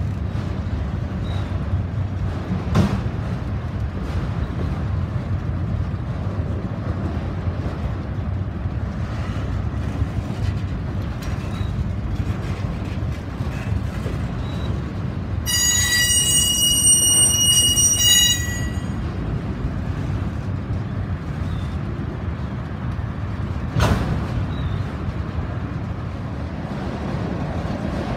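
Freight train of autorack cars rolling past close by: a steady rumble of steel wheels on rail, with two sharp clanks. Just past the middle, a high wheel squeal is held for about three seconds and then cuts off.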